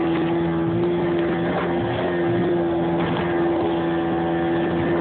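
Outboard motor of a Boston Whaler 13 running at a steady planing speed, a constant drone, with the hull's spray and wind rushing past.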